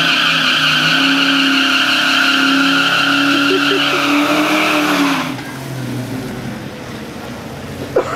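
Ford Mustang 5.0 V8 doing a burnout: the engine is held at high revs while the rear tyres spin and squeal, then it cuts off about five seconds in, and the engine settles to a lower, quieter running as the car rolls forward.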